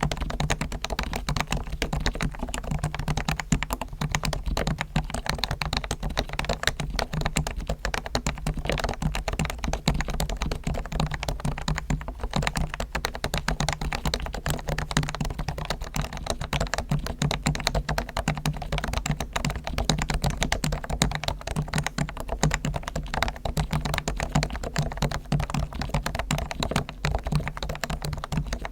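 Realforce R1 keyboard with Topre electrostatic capacitive switches, its springs, sliders and stabilizers fully lubed, being typed on continuously in a fast, dense run of keystrokes.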